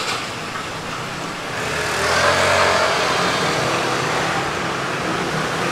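A motor vehicle passing on the street: its noise swells about two seconds in, peaks, then slowly fades over the steady street background.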